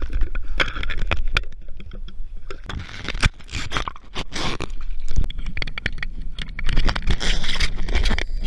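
Sea water splashing and sloshing around a scuba diver at the surface, then bubbling as the camera goes under water with him, in irregular bursts over a low rumble.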